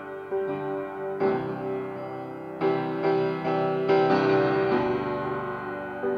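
Piano playing slow, sustained chords, a new chord struck every second or so.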